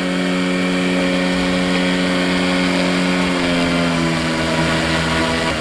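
Small brushless motor spinning a cut-down 8x4 inch APC propeller at full throttle on solar power: a steady motor hum and whine. Its pitch falls, gradually from about a second and a half in and more around four seconds in, as the motor slows under finger friction pushed past the solar panel's maximum power point.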